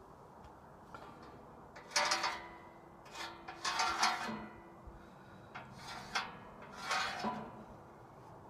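Steel sheet being cut by hand in several short, irregular strokes, each a harsh metallic rasp, the loudest about two and four seconds in.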